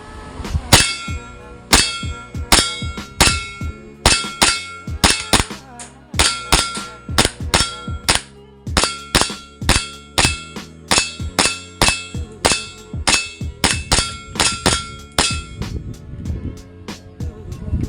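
Cybergun/WE Desert Eagle .50 AE gas blowback airsoft pistol fired shot after shot on green gas, about two sharp cracks a second, many followed by a short metallic ring. The shooting stops shortly before the end.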